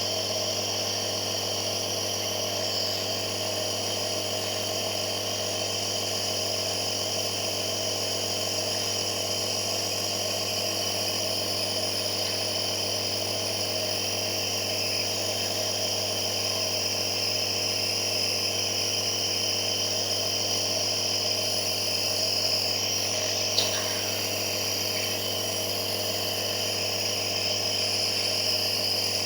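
Compressor nebulizer running with a steady electric hum and buzz, unchanging throughout, with a single brief click late on.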